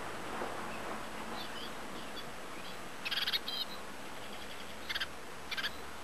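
Blue tits calling: a few thin, high chirps, then three brief buzzy rattles in the second half, each followed by a short high note.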